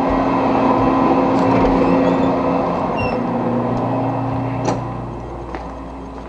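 Metal lathe running with a steady machine hum, growing quieter over the second half, with a single sharp click about three-quarters of the way through.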